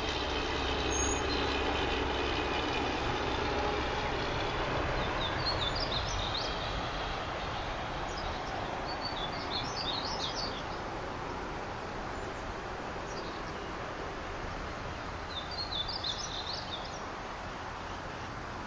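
Outdoor ambience with a steady background hiss: a distant engine drone fades out over the first few seconds, and small birds chirp in three short bursts.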